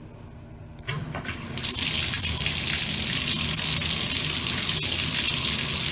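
Bathtub faucet turned on about a second in, then water gushing steadily from the spout into the tub.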